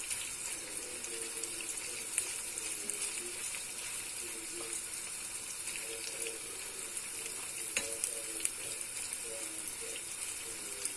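Quince and ginger frying in butter in a pan: a steady sizzling hiss with a few faint clicks.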